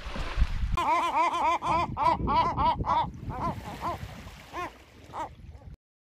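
Gull calling in a rapid run of harsh repeated notes, about five a second, then slower and fainter calls, over low wind and surf noise. The sound cuts off abruptly near the end.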